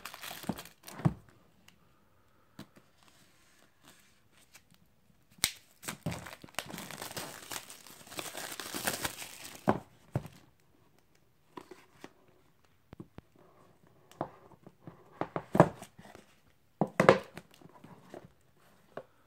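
Plastic shrink wrap being slit and torn off an iPad mini's cardboard box, crinkling, with a long tearing stretch in the middle. A few sharp knocks and taps near the end as the box is handled.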